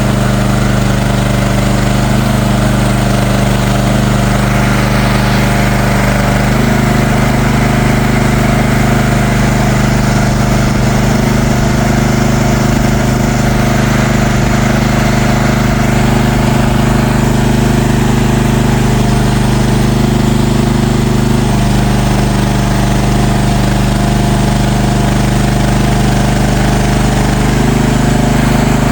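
An engine running steadily and loud, its pitch shifting slightly a few times.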